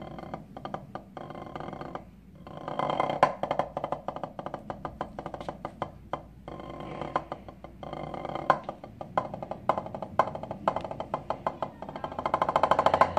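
Wooden drumsticks played on a drum practice pad: bursts of fast strokes and rolls broken by single louder accents, with short pauses about two and six seconds in, ending on a dense roll.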